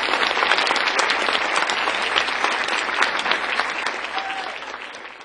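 Audience applauding, a dense spread of many hands clapping that fades away over the last second or so.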